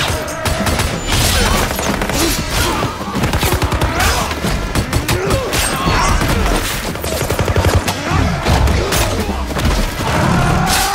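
Rapid rifle fire in close, overlapping volleys, with bullets striking tree trunks.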